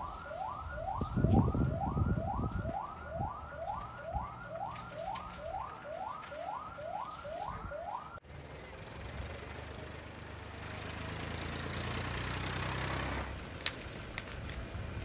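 A siren whooping upward over and over, about two rising sweeps a second, that cuts off about eight seconds in. A steady rushing noise with a low hum follows, swells for a few seconds near the end, and gives way to a few sharp clicks.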